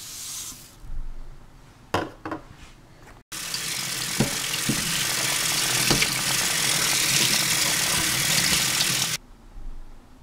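Kitchen tap running onto quinoa in a fine-mesh strainer over a stainless steel sink for about six seconds as the grain is rinsed; it is a loud, even hiss that starts and stops abruptly, with a few light knocks in it. Before it, dry quinoa pours from a measuring cup into the strainer with a short hiss, followed by two clicks.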